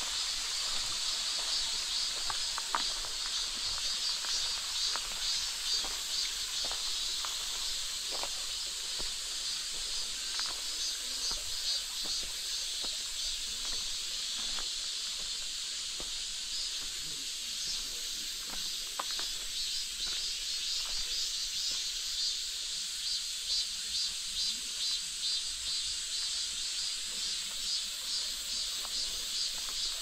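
Steady high-pitched chorus of summer insects with a fast pulsing shimmer, over the light crunch of footsteps on a dirt-and-gravel path.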